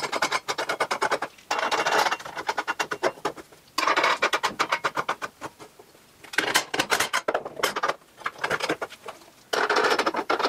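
Steel nuts being spun by hand down the threaded bolts of galvanised strut (unistrut) clamp bars, a fast metallic clicking rattle of thread on thread. It comes in about five runs of a second or two each, with short pauses between.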